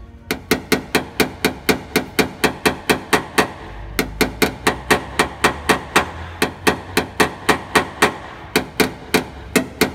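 Rapid light hammer taps on a Chevrolet Camaro's fender, about four a second and evenly paced, with two short pauses. This is paintless dent repair: tapping down the small high spots left after pushing out the dent.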